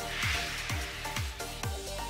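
Intro music with a steady kick-drum beat, about two beats a second, under held synth notes, with a swell of hiss at the start.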